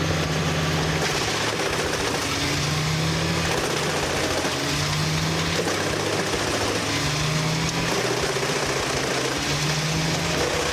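Wood chipper running steadily. Its low engine hum swells about every two and a half seconds.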